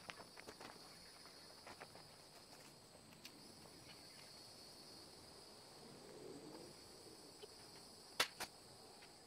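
Faint, steady high-pitched insect buzzing, with a few light clicks and one sharp click about eight seconds in.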